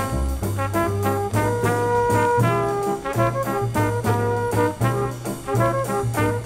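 Instrumental 1960s Brazilian jazz from a vinyl record: brass horns play held melody notes over a walking bass line and drums keeping a steady beat.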